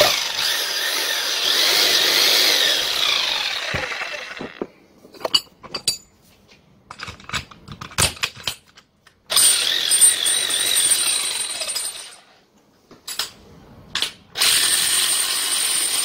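Keyang KH-50H electric demolition hammer test-run in three short bursts just after a new bearing and oil seal were fitted. The motor whines while running and spins down with a falling whine after the first two bursts, with clicks of handling in between.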